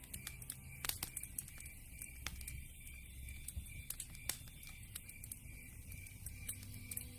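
Wood fire crackling, with irregular sharp pops and snaps over a low rumble of the burning logs.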